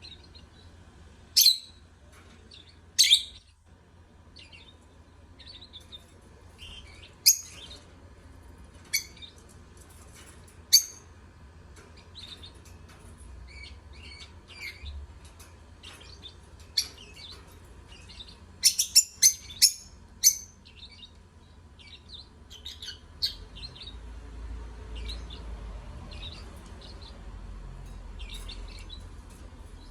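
Lovebirds chirping: sharp, shrill chirps at irregular intervals, with a quick run of about five loud ones two-thirds of the way in, over a steady stream of softer chatter.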